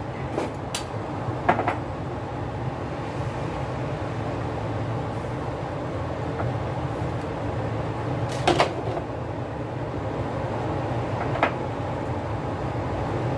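Steady low rumble of a pot of soup heating on the stove and coming to the boil, with a few sharp kitchenware clinks, the loudest about eight and a half seconds in.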